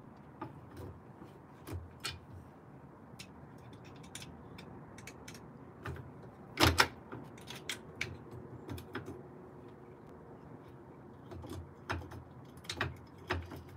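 Irregular metallic clicks and knocks of a hand wrench and the stock pedal hanger as it is being unbolted from a Veteran Lynx electric unicycle, the loudest a sharp double clack about six and a half seconds in, with more knocks near the end.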